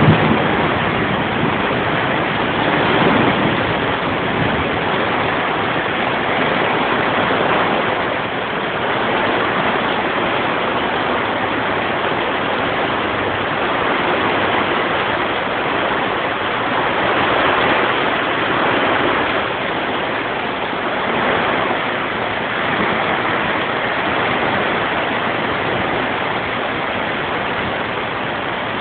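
Rain falling steadily, a dense even hiss that swells a little now and then.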